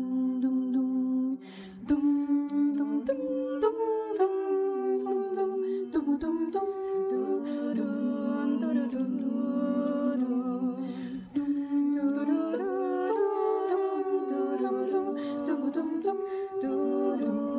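Small mixed vocal ensemble singing a cappella in close harmony, humming wordless sustained chords that change every second or two, with a brief break about a second and a half in.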